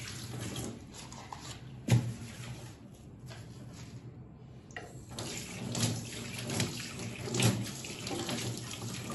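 Tap water running into a stainless steel kitchen sink as dishes are rinsed by hand, with a few knocks, one about two seconds in and several more in the second half.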